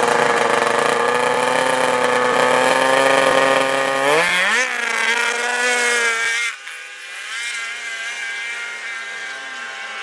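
Snowmobile engines held at high revs, then rising sharply in pitch about four seconds in as the sleds launch. The sound drops suddenly at about six and a half seconds and carries on quieter and farther off as they race away.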